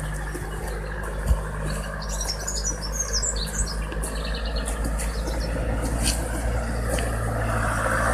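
Birds chirping in short bursts over a steady low hum.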